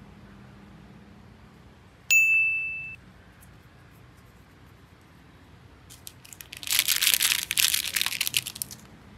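A single bright ding about two seconds in, ringing out for just under a second. From about six seconds in, a few seconds of crinkling from the foil wrapping of a small gift box being handled.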